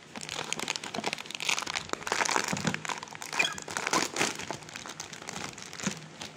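Clear plastic bag crinkling as hands pull a box out of it, a dense run of crackles that is loudest in the middle.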